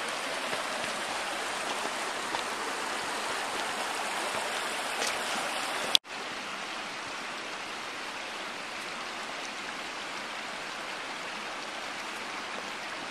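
Shallow creek running over rocks, a steady rush of flowing water, with a brief dropout about six seconds in.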